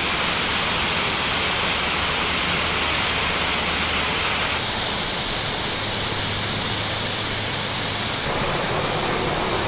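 Steady rush of falling water from Multnomah Falls and the cascading creek below it. Its tone shifts abruptly about four and a half seconds in and again about eight seconds in.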